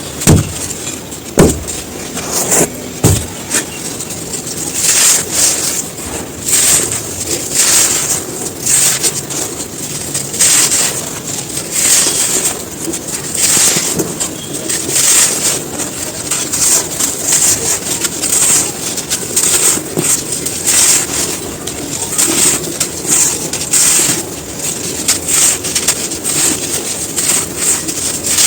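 Dry, crispy sand clumps crumbling in a steady run of crunches, about one to two a second.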